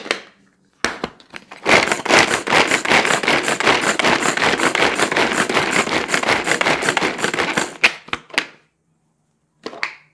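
Pigeon pull-cord vegetable chopper being pulled over and over: a fast, loud rattling of its spinning blades chopping one small onion for about six seconds. A couple of separate clicks follow as it stops.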